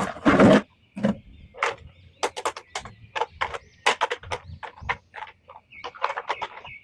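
An irregular series of sharp clicks, taps and small knocks, with short quiet gaps between them, from hard plastic toys and packaging being handled.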